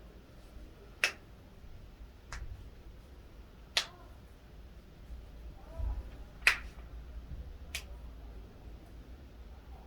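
Joints popping during a chiropractic adjustment: five separate sharp cracks spaced one to two and a half seconds apart, the first and fourth the loudest.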